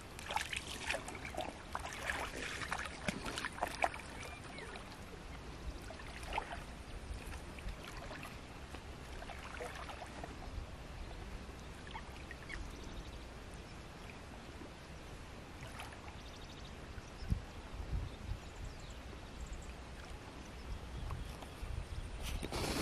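Shallow river water splashing and sloshing as someone wades, busiest in the first few seconds, then a faint steady outdoor background with a few scattered small splashes.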